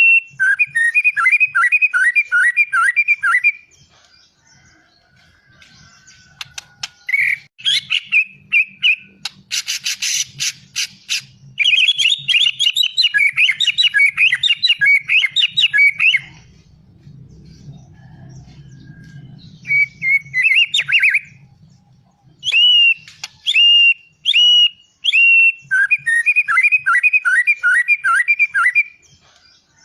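A murai songbird singing loud, varied phrases: quick strings of repeated whistled notes, with pauses between phrases. About ten seconds in there is a short, harsh rattling burst.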